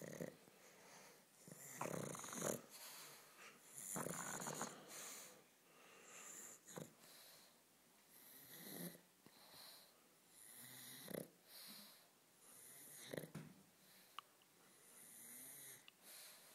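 Pug snorting and wheezing in short, noisy breaths about every two seconds, loudest in the first five seconds.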